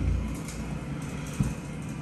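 Carpet-cleaning extraction machine running with a steady low drone and hiss as the wand is worked over the carpet, with a short thump about one and a half seconds in.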